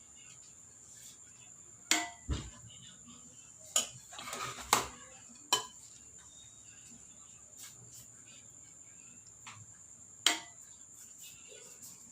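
A spoon knocks against a cooking pot in a series of sharp knocks, spaced a second or more apart, with a brief scrape of rice being spooned in. A steady high-pitched drone runs under it.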